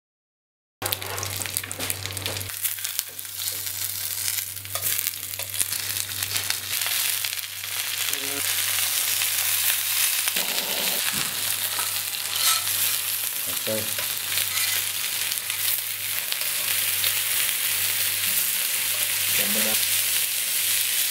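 String-tied roast pork rolls sizzling as they fry in a pan with apple wedges and onions, then on a steaming hot plate. The steady hiss begins just under a second in and grows a little louder about eight seconds in, with a low steady hum underneath in the first half.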